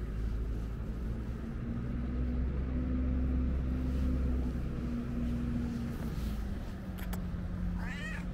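Low, steady engine rumble from a motor vehicle, its pitch shifting slightly. Near the end a cat gives one short meow, just after a brief click.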